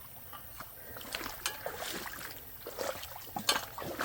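Water trickling in a stream, with irregular light crunches and clicks scattered through it.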